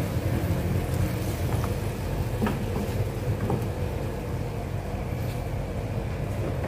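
Wooden spatula stirring diced tomato through a simmering sauce in a non-stick frying pan, with a few light taps against the pan. A steady low rumble runs underneath and is the loudest sound.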